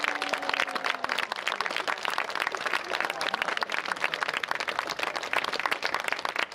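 Crowd applauding: many hands clapping at once.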